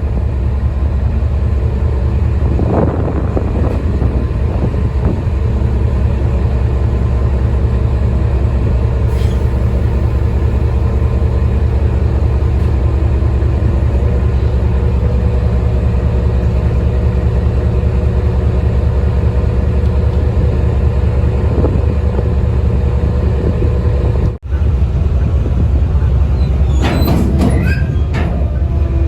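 Locomotive-hauled nuclear flask train running on the line with a steady, heavy low rumble, and a few high squeals from the wheels or brakes near the end.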